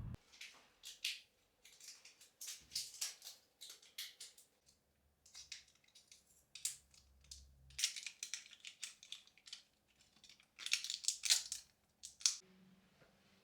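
A series of short, irregular scratchy crunching and rustling sounds from hands handling something in a small room.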